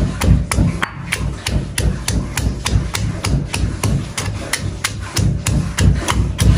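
Stone pestle pounding shallots, garlic and chillies in a stone mortar (lesung batu), a steady run of strokes about three to four a second, crushing the aromatics for a spice paste.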